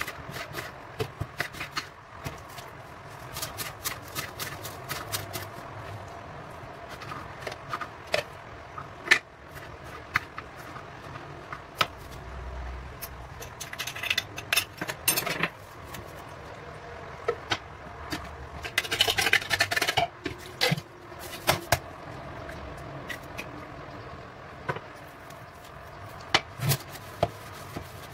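Kitchen knife slicing an onion, tapping repeatedly on a wooden cutting board, followed by scattered handling knocks and two short, louder noisy spells midway. Near the end, hands squelching and kneading minced-meat köfte mixture in a plastic bowl.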